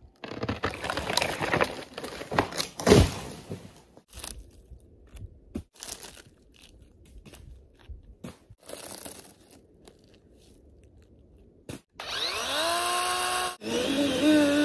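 Dry dead wood crunching and snapping, with one loud crack about three seconds in. Near the end, a DeWalt 20V battery chainsaw's electric motor spins up twice, a whine that rises in pitch and then holds.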